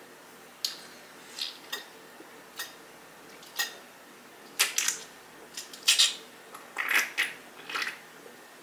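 A person gulping a soft drink straight from a can: a string of short, wet swallowing clicks, sparse at first and coming quicker and louder through the second half.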